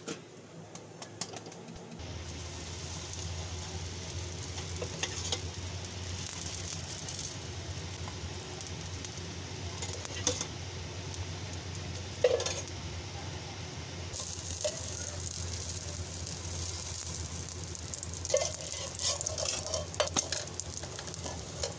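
Egg-filled baida roti parcel sizzling in oil on a frying pan as it slow-fries. The sizzle starts about two seconds in and grows louder twice later on, with a few sharp clicks, the loudest about midway.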